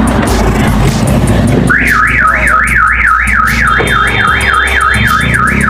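Aftermarket car alarm siren starting about two seconds in, wailing up and down about three times a second. It has been set off by the door switch sensor during a test of the newly installed alarm.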